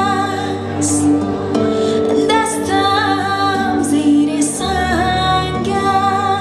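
A woman singing a Dari-language Afghan pop song live over band accompaniment, drawing out long wordless held notes with vibrato over sustained bass and keyboard chords.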